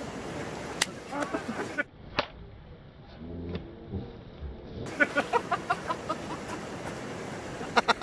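Sharp smacks of a stick striking a man's backside in a mock punishment: a single smack about a second in, then a quick run of them, about five a second, near the middle.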